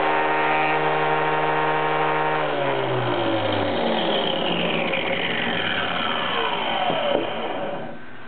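Angle grinder fitted with a toothed saw blade running at full speed. It is switched off about two and a half seconds in, and its whine falls steadily in pitch as it spins down, going quiet near the end.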